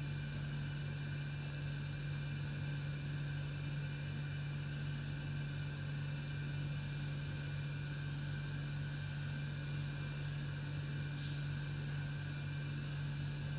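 Steady low machine hum with a few faint, thin, high steady tones over it, unchanging in level; a faint short rustle about eleven seconds in.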